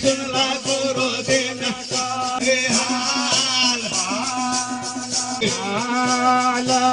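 Maithili devotional folk song, a jhumar to Karikh Baba: a voice singing wavering lines over a held drone note, with a steady beat of shaken percussion.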